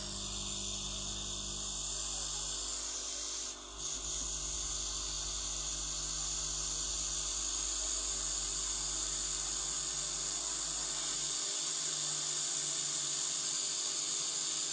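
Hot-air rework station (the 'assembly machine') blowing a steady stream of air, a continuous hiss that dips briefly about four seconds in.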